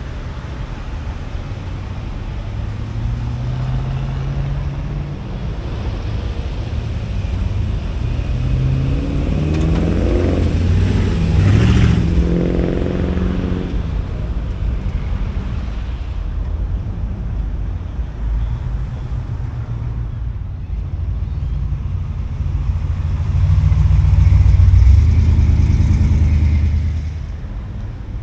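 Classic cars driving past one after another, engines pulling away from a roundabout. About halfway through, one car's engine rises in pitch as it nears and drops as it passes. A louder car goes by near the end, fading shortly before the end.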